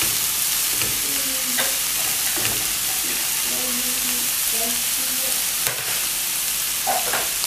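Shredded cabbage sizzling steadily as it fries in oil, with no water added, in a frying pan on a gas burner. A plastic spatula stirs it at the start, with a few light scrapes and taps later.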